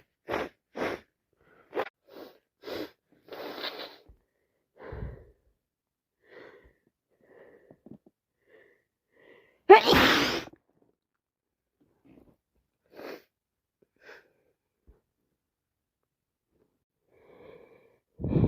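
A woman with a head cold sneezing once, loudly, about halfway through, after a string of short breathy sounds. A second sneeze starts at the very end.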